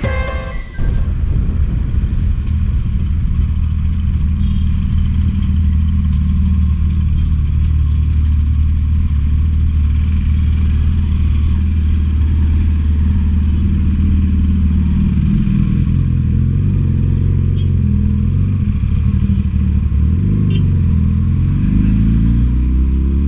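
Motorcycle engine running steadily at a low pitch while riding. Near the end it revs up and down, the pitch rising and falling. Intro music cuts off just after the start.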